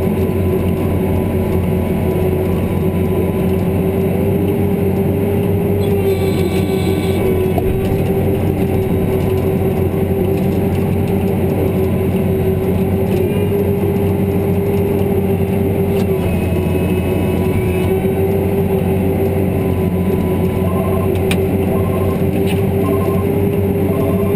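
New Holland TV6070 tractor engine running steadily under load while driving a Pronovost PXPL snowblower, heard from inside the cab as a constant drone with a steady whine on top. Faint short beeps repeat near the end.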